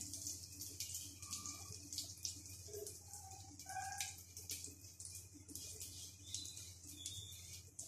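Omelette frying in ghee on a tawa: a low, steady sizzle with fine crackles of the bubbling egg edges.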